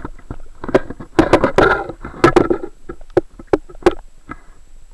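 Underwater water noise in a tidal current: irregular knocks and gurgling splashes of moving water against a submerged camera housing, densest about a second to two and a half seconds in.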